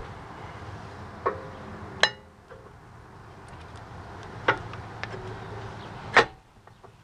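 Four sharp metallic clinks and knocks of a brake caliper being handled and fitted over new pads onto its carrier at a rear disc brake. The loudest comes near the end.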